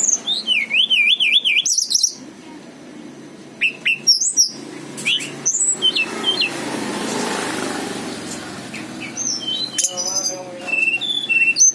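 A tledekan gunung songbird singing bursts of varied, high whistled phrases. The song starts with a fast wavering trill, then gives short rising and falling notes with pauses between them. A soft, steady rushing noise fills the pause in the middle.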